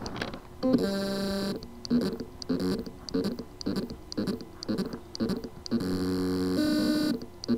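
HGST 2.5-inch laptop hard drive with loose spindle-motor contacts, trying to spin up: a buzzing whine about a second in, then a run of short buzzing pulses about two a second, then a longer buzzing whine and a click near the end. It is the sound of a motor that spins but cannot reach full speed because its contacts are loose.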